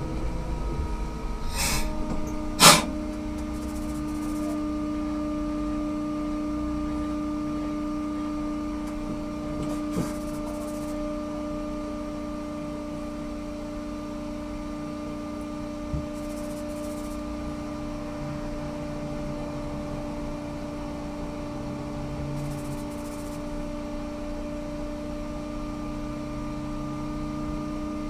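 Ikarus 280T trolleybus coming to rest: its running rumble dies away, a sharp click comes about two and a half seconds in, and a steady electrical hum of several fixed tones follows while it stands.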